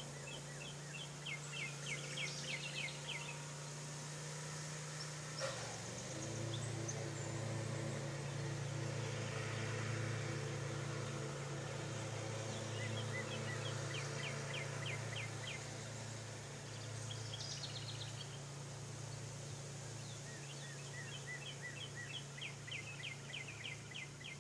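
A songbird singing a quick trill of high ticking notes three times, with a short higher call in between, over a steady low hum. A single click comes about five seconds in, after which the hum drops a little in pitch.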